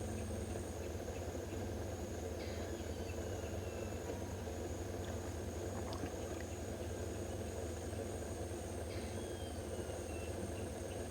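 Steady low hum with a constant thin high trilling of crickets. Two faint falling calls sound about two and nine seconds in.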